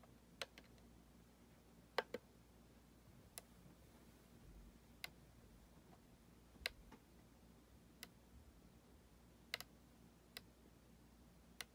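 Mooer GE200 multi-effects pedal's selector knob clicking as it is turned, about a dozen short, sharp clicks at uneven intervals, a few in quick pairs, over near silence.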